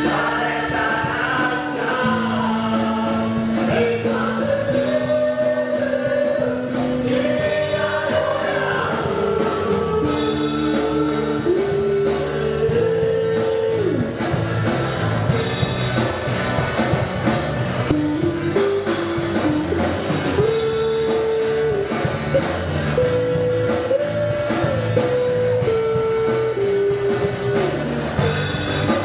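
Gospel song with a vocal group singing long held notes over guitar and band accompaniment.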